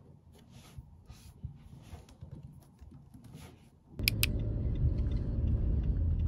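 Soft clicking of a laptop keyboard being typed on, about two keystrokes a second. About four seconds in it cuts to a car on the move: two sharp clicks, then a steady, much louder low rumble of road and engine noise.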